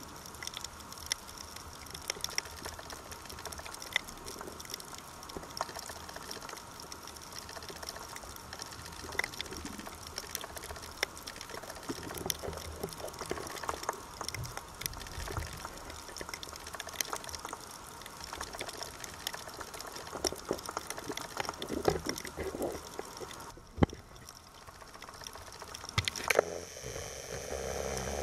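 Underwater ambience on a coral reef: a steady wash of water noise dotted with many scattered sharp clicks and crackles. Near the end the water noise grows louder and fuller.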